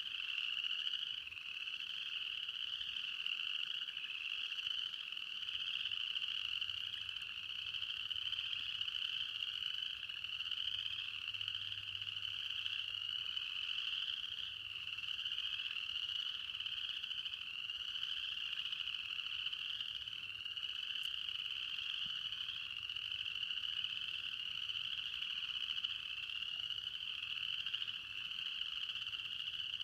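A dense chorus of many frogs calling at once at night, a high-pitched continuous trilling that blends into one steady wall of sound without pause.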